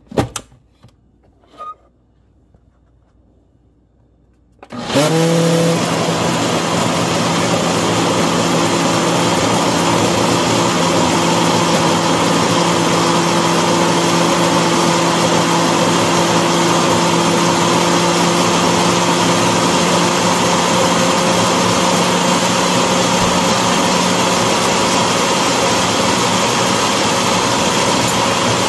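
A few clicks as the blender jar is seated on its base. About five seconds in, the electric countertop blender's motor starts abruptly and runs steadily with a constant hum, blending a thick yogurt-and-fruit smoothie.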